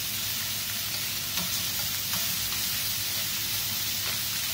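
Chicken pieces sizzling steadily in hot oil and butter in a steel frying pan as they are seared, with a few light clicks of metal tongs against the pan as the pieces are moved.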